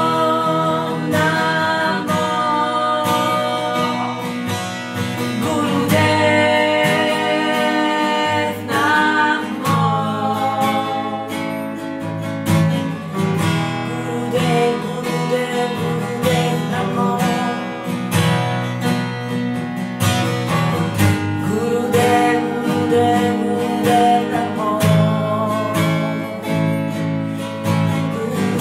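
Women singing a devotional mantra chant in long, held notes over a strummed acoustic guitar.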